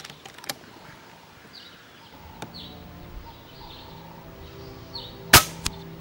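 A single sharp shot from an FX Impact M1 .22 PCP air rifle, about five seconds in, over soft background music that starts about two seconds in.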